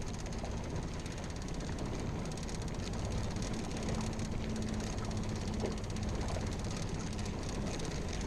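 Small outboard motor running steadily with a low rumble and a faint hum, mixed with wind noise on the microphone.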